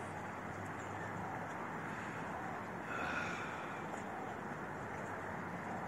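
Steady outdoor background noise, an even hiss with no distinct events, swelling slightly about three seconds in.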